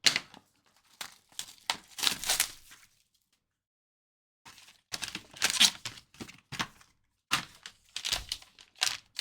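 Trading card packaging being handled and opened: irregular bursts of crinkling and tearing with small knocks, and a pause of about a second and a half near the middle.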